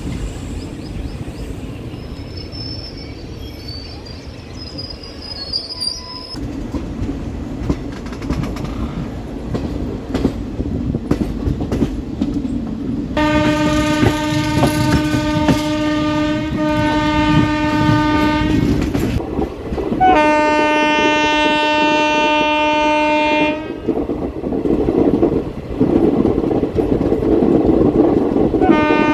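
Passenger train running with steady wheel rumble and rail clatter, and a faint high squeal a few seconds in. The locomotive horn sounds a long blast about halfway through, another shorter blast a couple of seconds later, and starts a third near the end.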